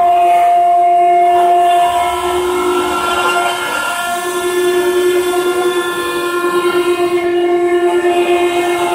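Stone CNC router spindle whining steadily as the cutter carves a stone relief. The tone dips briefly about halfway through and pulses in loudness near the end.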